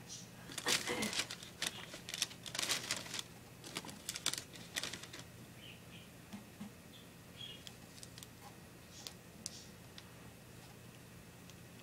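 Thin plastic carrier bag crinkling and crackling as a cockatiel pushes into it, a dense flurry over the first five seconds, then only a few scattered small crackles and faint short bird peeps.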